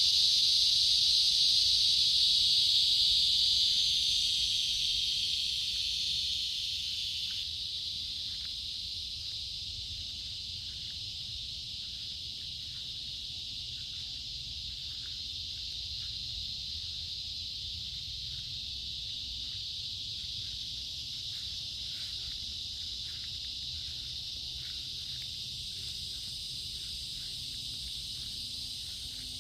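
Insects chirring in a steady, high-pitched chorus after rain. The chorus gets quieter over the first several seconds, then holds even, with short faint notes repeating about once or twice a second beneath it.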